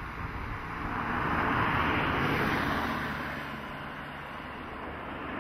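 Jet noise from a formation of nine BAE Hawk T1 jet trainers flying past. It is a steady rushing sound that swells to its loudest about two seconds in, then slowly fades.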